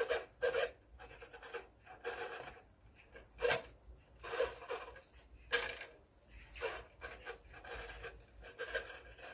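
Gloved fingers rubbing and scraping at a clock's hands and centre spindle while working the hands off, in irregular bursts, with a couple of sharp clicks.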